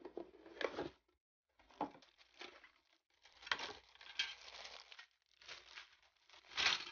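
Clear plastic bags around plastic model-kit parts crinkling and rustling as they are handled and set down, in several bursts with a few light knocks of plastic parts.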